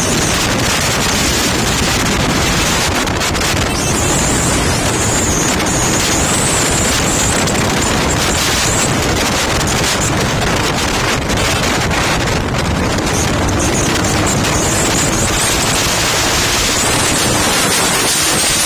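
Loud, steady wind rush buffeting the microphone of a motorcycle rider moving at road speed, covering the motorcycle's own engine.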